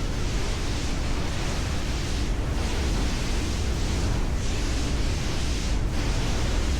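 A speedboat underway: a steady rush of wind buffeting the microphone and water rushing past the hull, with a deep low rumble. The higher hiss swells and dips every second or two.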